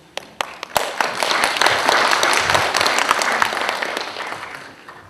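Audience applauding. It starts with a few scattered claps, swells within a second into a full round of clapping, and fades away near the end.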